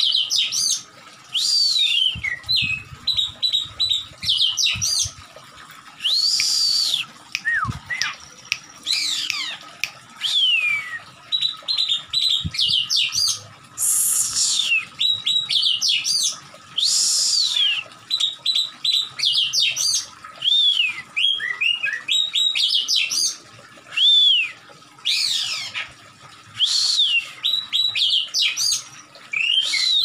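Oriental magpie-robin singing in a fired-up, aggressive state. It gives rapid clear whistles and downward-sliding phrases, broken every few seconds by a harsh, hissing rasp.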